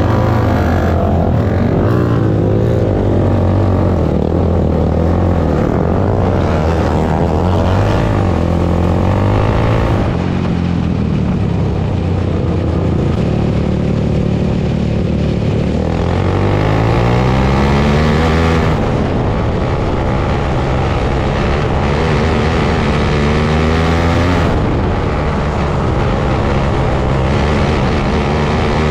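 Open 500 outlaw dirt kart engine running hard, its revs climbing and dropping again and again as it accelerates and backs off. There are clear rising pulls at about 12 and 16 seconds in and again a little past 20 seconds.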